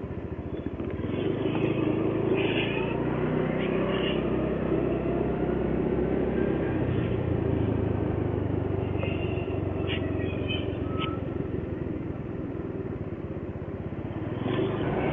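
Motorcycle engine running steadily under way, with road and wind noise; it picks up speed about a second in.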